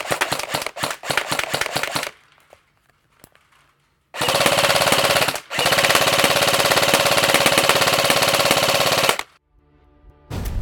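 KWA H&K G36C airsoft electric rifle with its 2GX gearbox firing on full auto: a short burst of about a second, then after a brief pause a long burst of about three and a half seconds. Before that, a run of sharp clicks for about two seconds.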